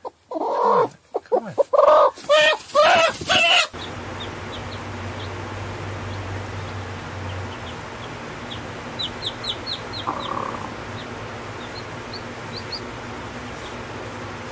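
A broody hen giving loud clucking calls in bursts as a hand touches her. After a cut, a steady low hum with faint high peeping of chicks in short runs about the middle and near the end, and one brief hen call.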